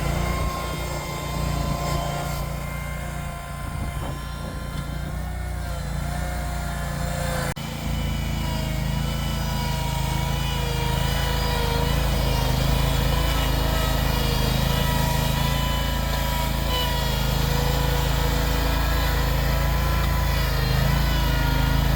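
Ventrac compact tractor engine running steadily under working load, its pitch wavering slightly, with an abrupt jump in the sound about seven and a half seconds in.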